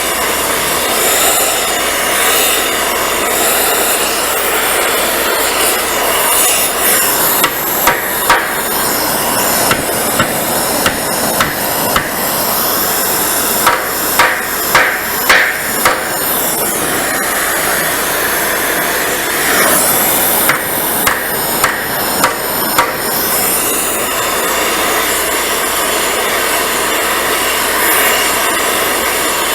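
Hammer blows on a mild-steel part as it is driven into shape, in several clusters of sharp strikes, over a steady rushing hiss.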